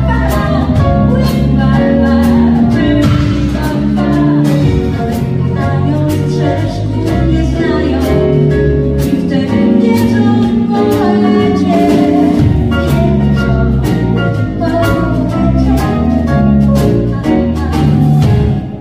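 A live pop band playing: drum kit keeping a steady beat under bass guitar, electric guitars, keyboard and flute, with a woman singing.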